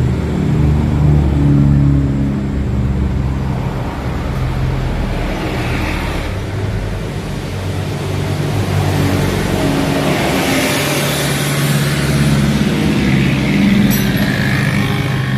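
A motor vehicle engine running, its low hum shifting up and down in pitch, with a swell of hiss about ten seconds in.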